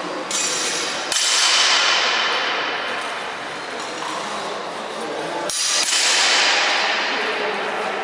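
Steel longswords clashing twice, about a second in and again near the sixth second, each strike followed by a bright ringing that fades slowly in the hall.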